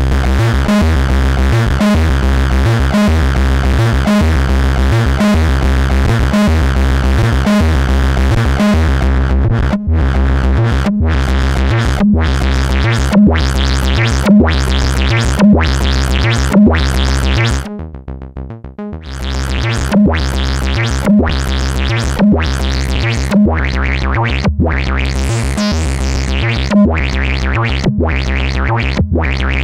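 Plankton Electronics Ants! synthesizer playing a repeating, bass-heavy sequence through the Spice distortion and saturation unit. Its brightness drops about a third of the way in, and past the middle the pattern briefly falls away to a quieter fast buzzing for about a second before it comes back.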